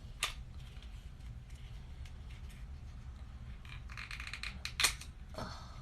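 A small beauty product and its packaging being handled: light rustling and scattered ticks, with a sharp click just after the start and a louder one near the end, over a low steady hum.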